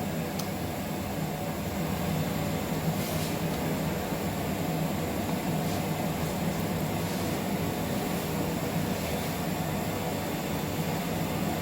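Steady mechanical hum and air noise of laboratory equipment and ventilation, with a couple of faint clicks.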